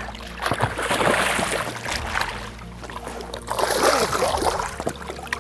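A hooked bass thrashing at the surface beside the boat, splashing water in two bouts, the second about three and a half seconds in.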